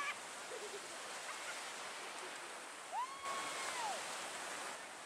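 Ocean surf breaking and washing in, a steady hiss of water. A little over halfway through a person gives one drawn-out call lasting about a second over it.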